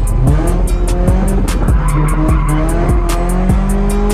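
Mercedes C-Class drift car sliding, heard from inside the cabin, with the engine revving up and down and the tyres squealing. Background music with a steady beat plays over it.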